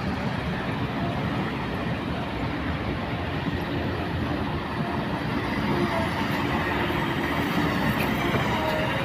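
JCB 3DX backhoe loader's diesel engine running with a steady rumble, with faint squeals and light metallic clicks creeping in over the last few seconds.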